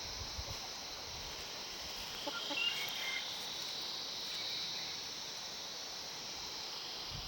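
Steady insect chorus, an even high-pitched buzz. A short run of brief chirps about two and a half seconds in.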